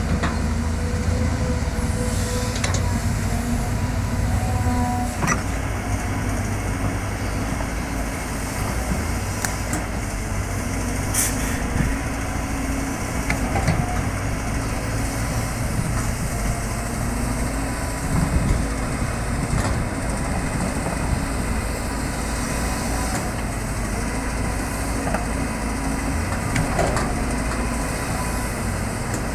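Caterpillar excavator's diesel engine running steadily while the machine works, with a few sharp knocks.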